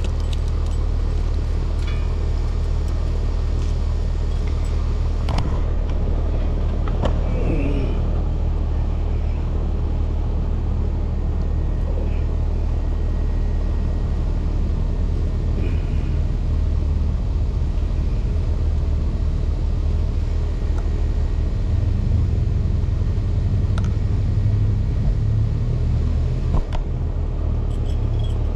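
Steady low mechanical rumble that runs without change, with a few faint clicks and taps on top.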